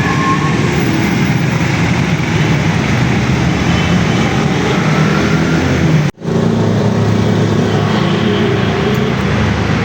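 Suzuki GS150's single-cylinder four-stroke engine running steadily, with a brief cut-out about six seconds in.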